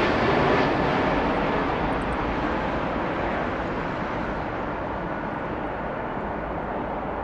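Airbus A330-300 with Pratt & Whitney PW4000 turbofan engines on landing approach, gear down: a steady jet roar that fades as the airliner flies away, its upper hiss dying away first.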